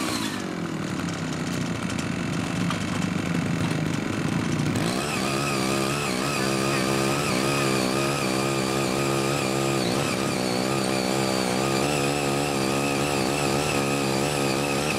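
Small engine of a CY80 foldable mini tiller running as its eight rotary tines dig into hard, uncultivated soil. Its pitch drops at first and it runs rougher until about five seconds in. It then settles into a steady run whose pitch wavers slightly under load.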